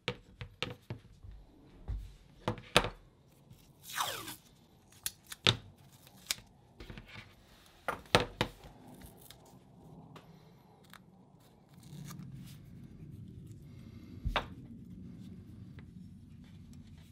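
Masking tape being pulled off the roll, torn and pressed onto the chrome of old aircraft wire-locking pliers, with a longer peeling sound that falls in pitch about four seconds in. Sharp clicks of the metal pliers being handled run through the first half, and a steady low rubbing takes over in the last few seconds as the tape is smoothed down.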